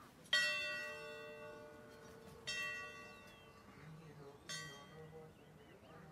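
A large hanging metal temple bell struck three times, about two seconds apart. Each stroke rings on and fades before the next, and the first is the loudest.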